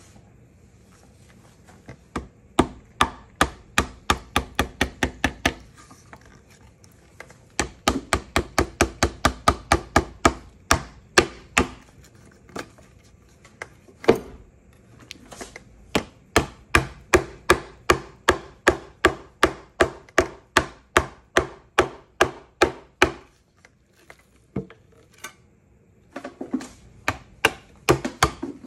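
A hand tool knocking on a thin metal blade and printing plate on a hard bench, in quick runs of sharp taps about four a second with short pauses between runs.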